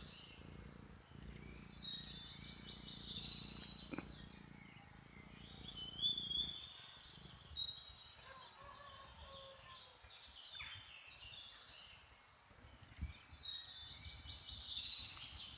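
Small songbirds chirping and singing in short high-pitched phrases that come back every few seconds.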